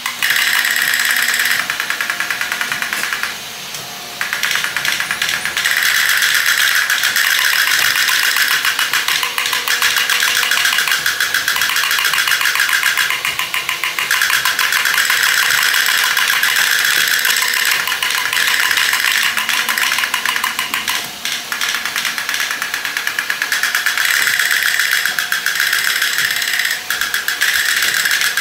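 Several battery-operated Taiyo tin toy tanks running together: small electric motors and tin gearing make a continuous fast clicking rattle, with brief dips in level about three seconds in and again later on.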